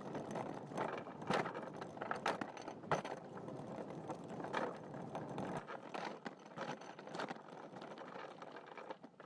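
The quiet opening of a recorded song: irregular clicking and rattling, like a small mechanism or ratchet, with a faint hiss behind it, before the band comes in.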